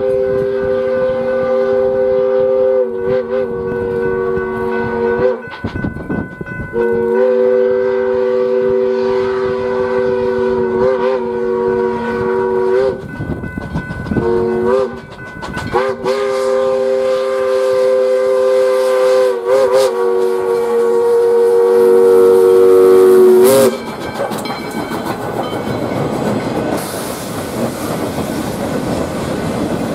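Steam locomotive USSC 148's Powell three-chime whistle blowing four blasts in a long-long-short-long grade-crossing signal, each a steady chord, the last held for about eight seconds. Then the train rolls close past, with a steady rumble and wheels clacking over the rail joints as the cane cars go by.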